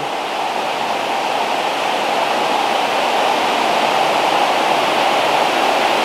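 Steady rushing of flowing water, a loud, even wash with no breaks.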